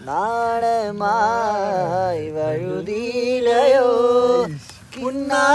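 A man singing a song, holding long notes that slide up and down in pitch, with a short break about five seconds in.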